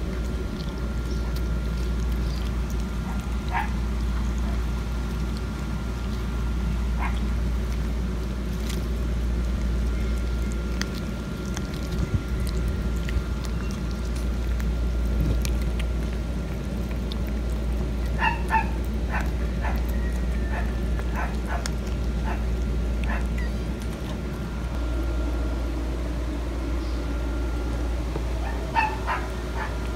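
Short, high-pitched animal calls in small clusters over a steady low rumble: one or two early on, a quick run of them about two-thirds through, and a few more near the end.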